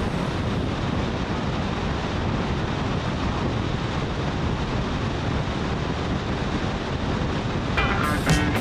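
Steady rush of wind over a helmet-mounted camera's microphone on a motorcycle at road speed, blended with road and engine noise. Music comes in near the end.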